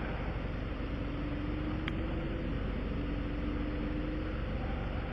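A vehicle engine idling steadily, with a faint steady tone through the middle and a small click about two seconds in.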